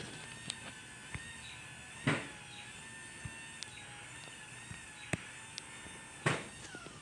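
LiftMaster 87504 wall-mount garage door opener running the door down: a steady whine with a few sharp knocks from the door, the whine dropping in pitch and fading near the end as the door comes to a stop.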